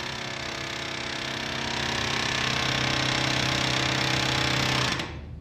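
Mechanical file-cutting machine running, its chisel hammering rapidly and steadily into a steel file blank to cut the teeth. The steady clatter drops to a quieter level about five seconds in.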